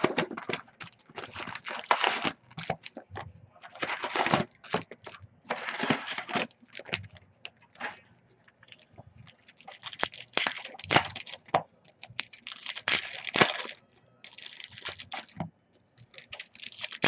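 Trading-card pack wrappers from a 2019 Donruss football hobby box being torn open and crinkled, in repeated bursts of rustling about a second long, with short clicks in between.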